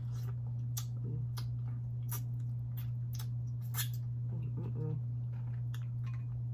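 Close-up eating sounds of someone eating cold blue crab: a string of sharp, wet mouth clicks and smacks at an uneven pace, with a brief faint hum from the eater about two-thirds through. A steady low electrical hum sits under it.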